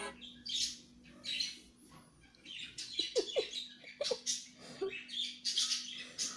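Two kittens play-fighting on a cotton shirt, with irregular rustling and scratching of the fabric as they tumble and claw. A few short squeaky chirps come about halfway through.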